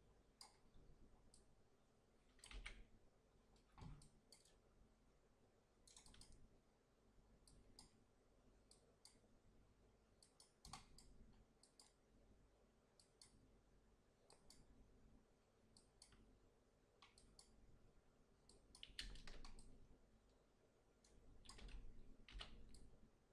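Faint computer mouse clicks at irregular intervals, some in quick pairs, with a few louder clusters near the end, over near silence.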